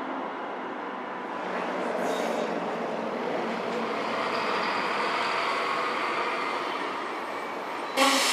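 A Detroit People Mover car running along its curved elevated guideway: a steady rail running noise that grows louder as it approaches, with a faint high whine through the middle. A sudden loud burst of noise near the end.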